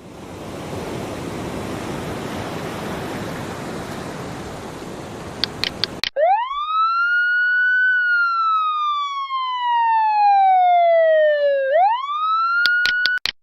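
A steady rushing noise for about six seconds, then a few short clicks and a siren wailing: its pitch rises quickly, falls slowly for about four seconds, then rises quickly again before cutting off.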